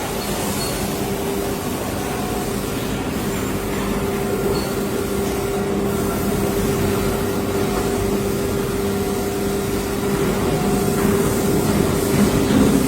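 CNC router machinery running: a steady mechanical hum with a constant tone over a broad machine noise.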